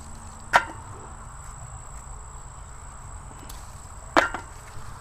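Two sharp knocks about three and a half seconds apart, the second quickly followed by a smaller one, over a faint steady insect drone.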